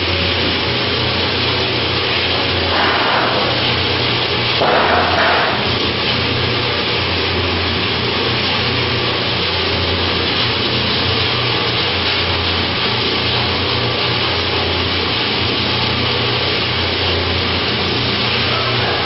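Octagonal metal seasoning mixer running: a steady motor hum under the continuous rattle of fried chips tumbling inside the rotating drum. Two brief louder rustles come about three and five seconds in.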